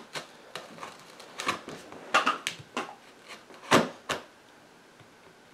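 A taped cardboard box being handled and worked at to get it open: a run of knocks, taps and scrapes, the loudest knock about three seconds in, then quiet near the end.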